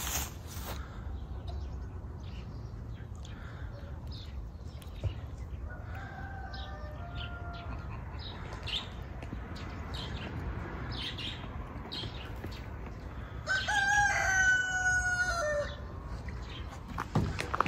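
A rooster crowing once near the end, a loud call of about two seconds that drops slightly in pitch as it ends. A fainter crow comes from farther off earlier on, with scattered short high bird chirps in between.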